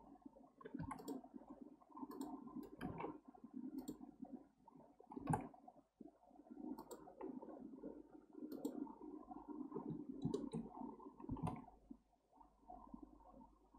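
Computer mouse and keyboard clicks, about a dozen scattered single clicks, over an uneven low background rumble.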